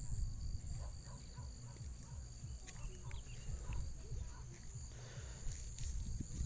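Outdoor rural ambience: a steady high-pitched insect drone with a few faint short chirps over a choppy low rumble.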